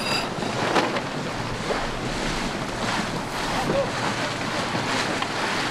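Wind blowing over the microphone and water rushing along the hull of a sailing yacht under way, a steady rushing noise.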